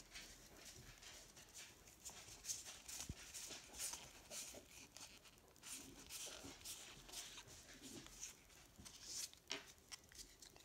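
Faint, irregular soft flicks and swishes of Pokémon trading cards being slid one at a time through a stack held in the hands.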